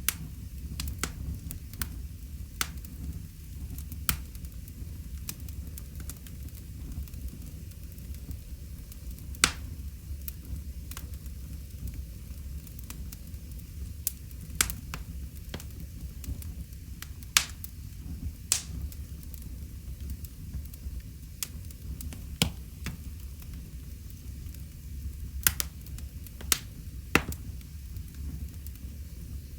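Wood fire crackling in a fireplace: a steady low rumble of burning with irregular sharp pops and snaps, several louder pops spaced unevenly.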